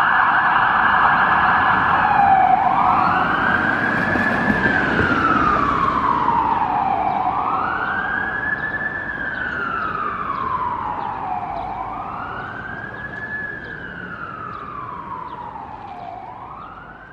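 Fire engine's electronic siren on a Scania P360 fire truck. It switches from a fast yelp to a slow wail about two seconds in, rising and falling about every four and a half seconds, with engine noise beneath. It fades steadily as the truck drives away.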